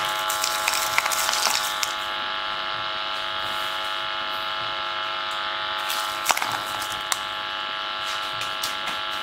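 A large loudspeaker driven by an LM386 amplifier puts out a steady buzzing tone with many overtones. Through the first two seconds, sand grains landing on the cone make crackly ticks, and a few sharp ticks follow around six and seven seconds.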